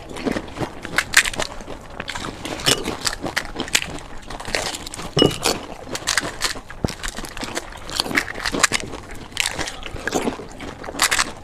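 Two people speed-eating panipuri: crisp puffed fuchka shells cracking open under the fingers, then crunching and chewing in the mouth. The result is a dense run of irregular crackles and clicks.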